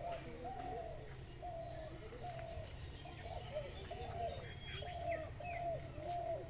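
Birds calling: a run of short, arching mid-pitched notes repeating about twice a second, with fainter high chirps among them.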